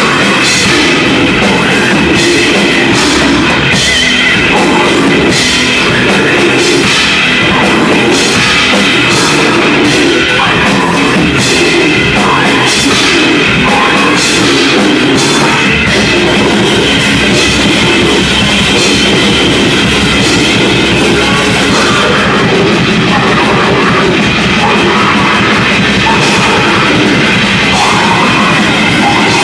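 Loud live grindcore: a full band with a drum kit and guitars playing fast, with rapid, dense drum and cymbal hits.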